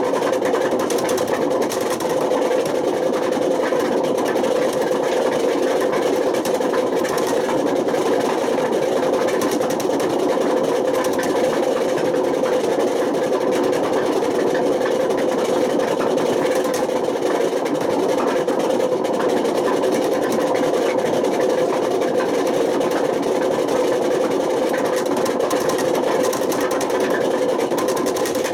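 Panasonic NA127VB6 washing machine running with its drum turning at a steady speed, giving a loud, steady drone with a fine continuous rattle. The noise comes from failed drum bearings.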